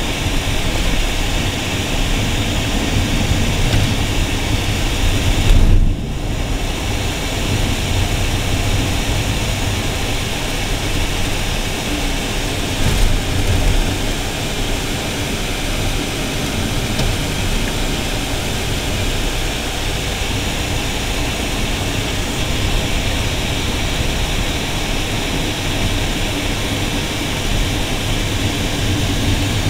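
A 2015 Renault Duster driving on a paved road, heard from inside the cabin: a steady rumble and road noise, with a brief louder knock just before six seconds in.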